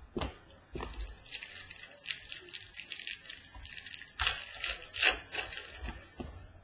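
Foil wrapper of a trading-card pack crinkling and tearing as it is opened and handled, a run of short crackles with the loudest about four and five seconds in.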